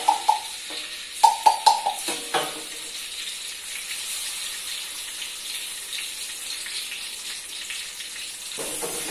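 Leftover cooking oil poured into a pan, with a few gurgling glugs in the first two seconds, then the hot oil sizzling steadily. The sizzle grows fuller just before the end.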